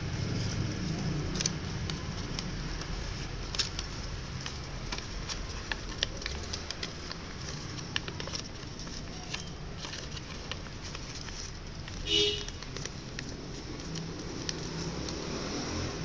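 Sheet of origami paper rustling and crackling as fingers fold and crease it, with scattered small clicks over a steady low background rumble. A brief high-pitched chirp stands out about twelve seconds in.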